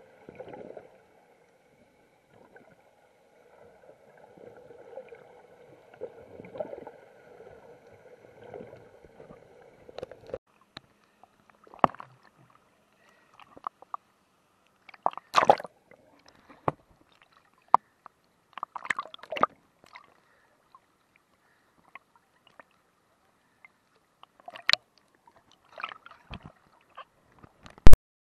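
Muffled sound inside a waterproof action-camera housing: for about ten seconds underwater, a steady low hum carried through the water. Then the camera is at the surface, with water splashing and sloshing against the housing in scattered sharp splashes, and a loud click near the end.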